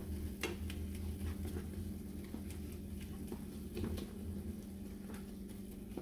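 Yellow plastic spatula stirring and pressing softened tomato and onion in a frying pan: scattered light taps and soft wet scrapes against the pan, over a steady low hum.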